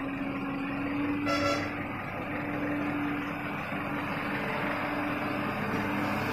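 Heavy loaded lorry's diesel engine running with a steady low hum as the truck drives past close by. A short vehicle horn toot sounds about a second in.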